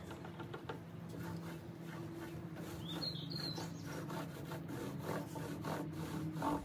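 Short-nap microfiber roller rolling hardwax oil along a wooden tabletop with light pressure: a soft, repeated rubbing, over a steady low hum. A bird chirps briefly about three seconds in.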